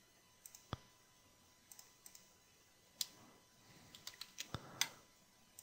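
Faint clicks of a computer mouse and keyboard: a single click about a second in, another about three seconds in, and a quick run of four or five keystrokes near the end.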